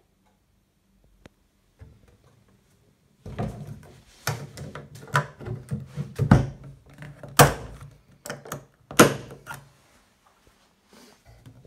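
Hands handling a hard plastic and aluminium motorcycle top box, with irregular sharp clicks and knocks. After about three quiet seconds the clicks and knocks come in a run lasting about six seconds, a few of them loud.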